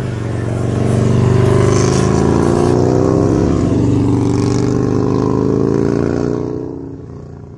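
An engine running, its steady drone swelling up over the first second and fading away in the last second or two.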